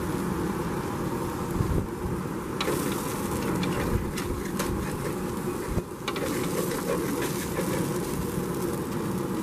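Chicken and chopped vegetables frying in a steel paella pan over a gas grill, a steady buzzing sizzle, while a wooden spoon scrapes and clicks against the pan, the clicks mostly from about two and a half seconds in.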